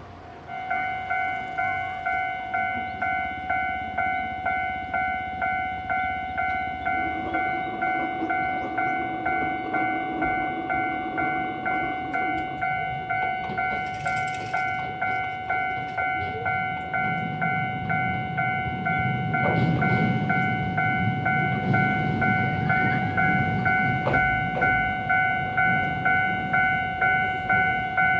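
Japanese electronic level-crossing warning bell ringing in steady, evenly repeated dings, as an Iyotetsu 3000 series electric train arrives; the train's rumble grows louder in the second half. A brief hiss comes about 14 s in, and a few sharp clicks come near the end.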